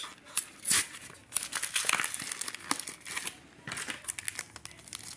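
A plastic blister pack for trading cards crinkling and crackling as it is handled and pulled open: a run of sharp crackles that thins out near the end.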